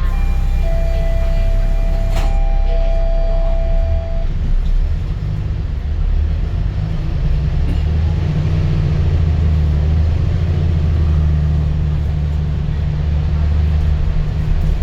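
Bus door-closing chime: a steady electronic tone, the same chime used on SBS Transit buses, sounding for about three and a half seconds near the start, with a sharp click about two seconds in. Under it the bus engine runs with a low drone, which grows louder about eight seconds in.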